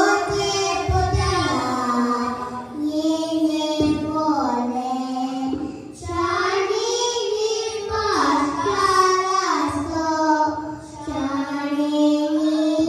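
A child singing a melody into a microphone, in long held notes with short pauses between phrases.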